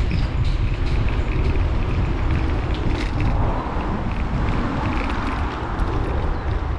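Riding a bicycle: wind buffeting the microphone in a heavy, steady rumble, over the hiss of tyres on the path, with a few small clicks.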